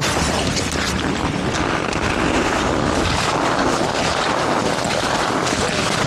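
Steady rushing of wind buffeting the microphone outdoors on a ski hill.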